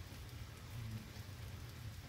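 Heavy rain falling steadily, a dense hiss with faint drop ticks, over a low rumble.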